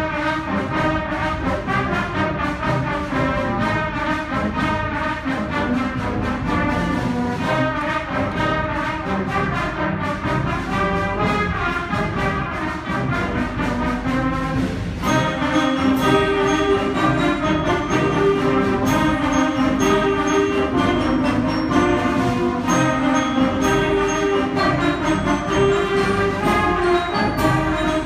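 A school concert band of woodwinds and brass playing a piece together, the brass prominent. It grows louder and fuller about halfway through.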